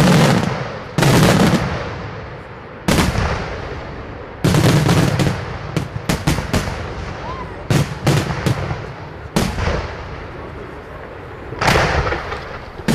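Aerial firework shells bursting in a string of loud booms, each trailing off in an echo. The booms come at uneven gaps, with a quicker cluster of bangs in the middle.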